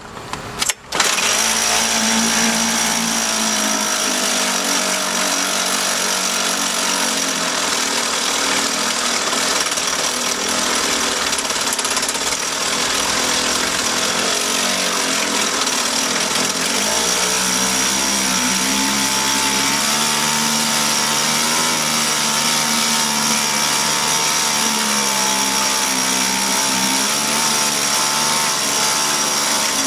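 Small air-cooled two-stroke outboard motor (a 1.5 HP Clinton with a Tecumseh powerhead) starting about a second in, then running steadily with a slightly wavering speed. It is running again after its fouled ignition points were cleaned and reset.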